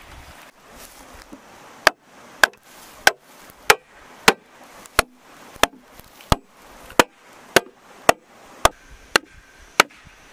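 Machete chopping a green bamboo pole: about fourteen sharp, ringing strikes, a little under two a second, starting about two seconds in.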